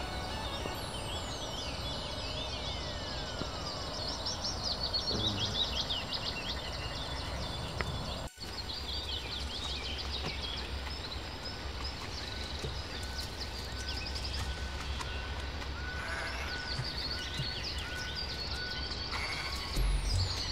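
Birds chirping and trilling, many short calls overlapping, over a steady low rumble; everything drops out for an instant about eight seconds in.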